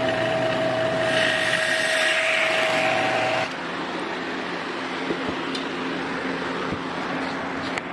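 A motor running steadily, a whirring hiss with a held humming tone; about three and a half seconds in it drops to a slightly quieter, lower steady hum.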